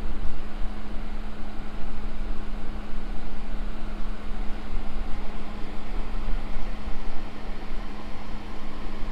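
Wind buffeting the microphone, a gusty, uneven low rumble over a steady noisy hiss, with a constant low hum underneath.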